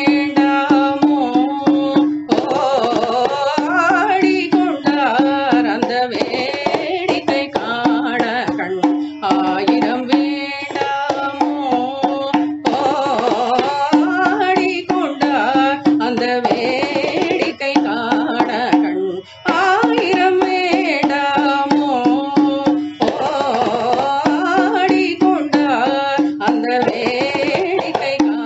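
Carnatic vocal music in raga Mayamalavagowla, Adi tala. A voice sings an ornamented, sliding melody over a steady drone, with hand-drum accompaniment keeping time.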